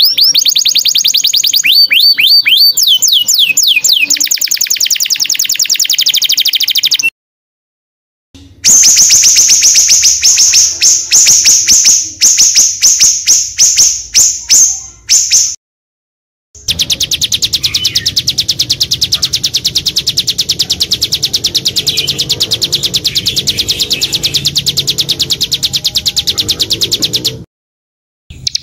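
Songbirds singing from edited recordings: high, fast chirps and trills in three separate stretches broken by short silences. The first opens with quick falling sweeps, the middle is a run of sharp separate chirps, and the last is a steady fast trill.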